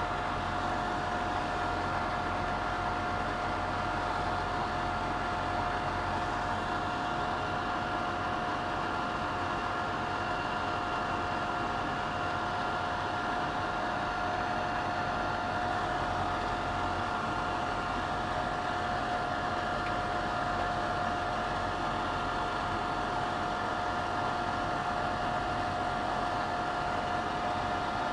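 24-volt cabinet extraction fan running steadily: an even whoosh of moving air with a constant whine.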